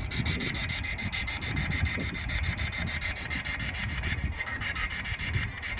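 Spirit box sweeping through radio stations, giving a steady hiss of static chopped about ten times a second, with wind rumbling on the microphone.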